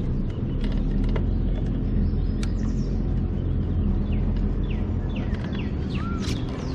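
Birds chirping with short, falling calls, several in quick succession late on, over a steady low rumble.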